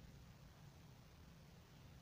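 Near silence: a faint, steady low hum under a light hiss.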